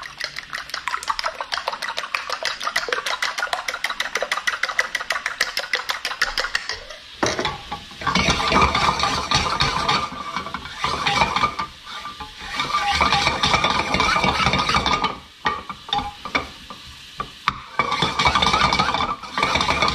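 A fork beating eggs against the side of a ceramic bowl: a quick, even clatter. About seven seconds in it gives way to a wooden spoon stirring and scraping sautéed morels around a stainless-steel skillet on the stove, louder and in uneven strokes.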